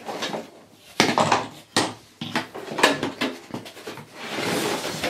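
Plastic toy playset pieces knocking and clattering together, with cardboard rustling, as the parts are pulled out of their box. The sounds come in irregular bursts with a few sharp knocks, and a longer stretch of rustling near the end.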